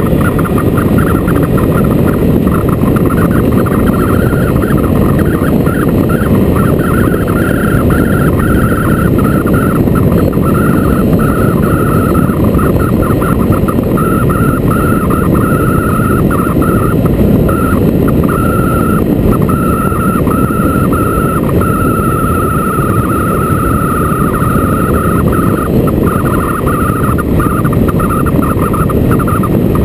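Motorcycle on the move: a steady, loud rush of wind and road noise, with a wavering higher tone that keeps dropping out and coming back.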